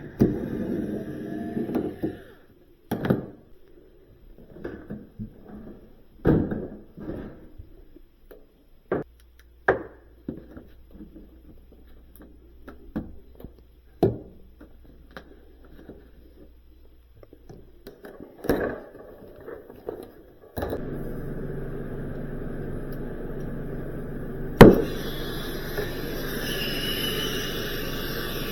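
Repair work on a refrigerator: scattered knocks and clunks of tools and parts. About two-thirds of the way through, a steady machine hum starts suddenly, and one loud bang comes near the end.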